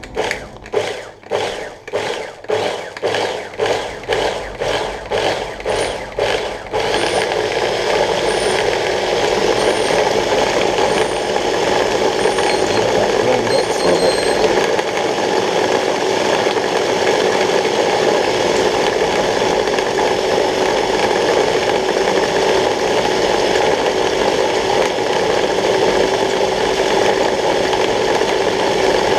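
Prolex electric mini food chopper, its motor pulsed in about a dozen short bursts, roughly two a second, then run continuously as its blade chops the contents.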